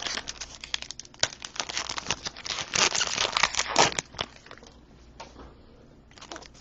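Crinkling and rustling of trading card pack wrappers and cards being handled: a dense run of small crackles and clicks for about four seconds, then a quieter spell before the rustling picks up again near the end.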